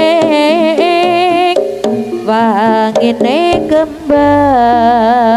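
Loud live jaranan gamelan music: kendang hand drums striking sharply under a wavering, sliding melody line, held over a steady low tone.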